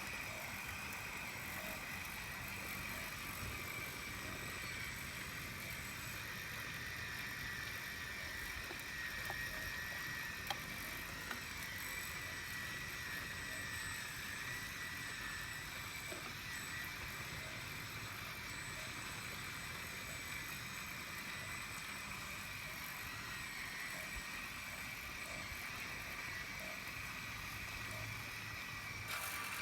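Small electric motors and gearing of RC model construction machines running steadily, with a faint whine that wavers a little in pitch and a few light clicks.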